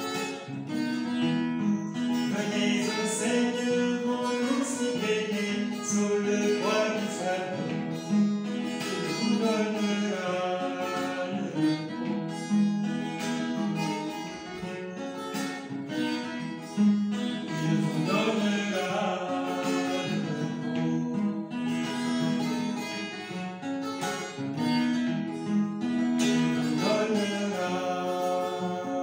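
Yamaha steel-string acoustic guitar with a capo, strummed and picked in a hymn accompaniment.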